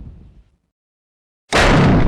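Sound effects: the rumbling tail of an explosion-like boom fades out, then dead silence, then a sudden loud burst of noise begins about one and a half seconds in.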